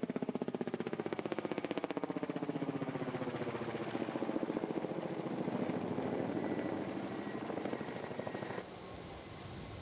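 Helicopter flying, its rotor chopping at a rapid, steady beat that cuts off suddenly near the end, giving way to a broad hiss.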